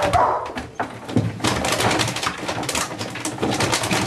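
A police dog rummaging with its paws and head through objects in a wooden box, a dense run of rustling, knocking and clattering as it searches. A short whine right at the start.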